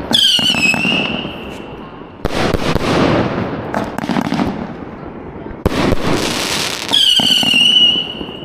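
A box of consumer fireworks (a multi-shot cake) firing shells that go off with a sharp bang about every two to three seconds. Twice a shell's high whistle sounds, dipping slightly in pitch as it fades.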